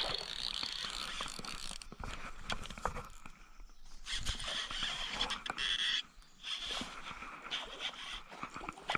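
Baitcasting reel being cranked to retrieve a lure, its gears whirring in spurts of a second or two, with small clicks and handling noise in between.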